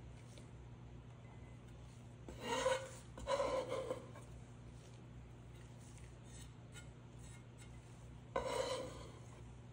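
Chef's knife scraping across a wooden cutting board, gathering minced garlic: a pair of short scrapes about two and a half seconds in and a third near the end.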